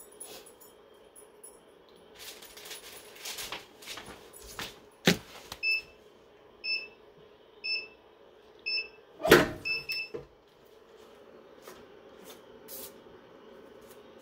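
Swing-away heat press's timer beeping, a short high beep about once a second for four or five seconds, signalling the end of the pressing time; partway through, a heavy clunk as the press handle is released and the upper platen swings open.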